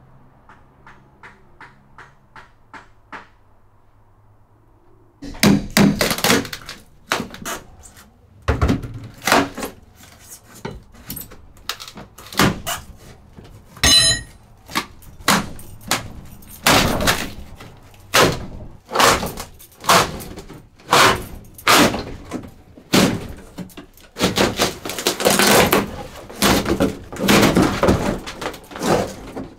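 Interior wall paneling of a truck camper being pulled and pried off the wall: a long, irregular run of loud knocks, bangs and cracks starting about five seconds in, with a brief high metallic ring near the middle. Before that, only faint soft ticking, about three a second.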